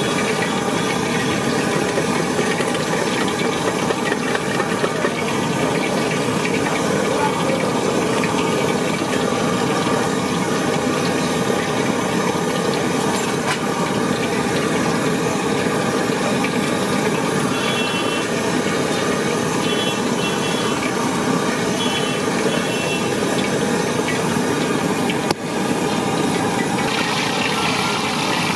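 A steady, dense, engine-like roar of street-stall background noise. Near the end a brighter hiss joins, which fits hot oil sizzling in a wok as a vada fries.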